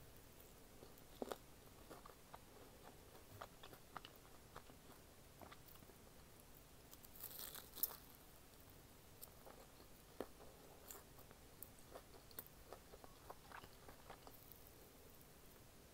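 A person biting into and chewing a sausage roll in bread coated with Bburinkle cheese seasoning: quiet close-up mouth sounds of scattered short clicks, with a louder bite about seven to eight seconds in.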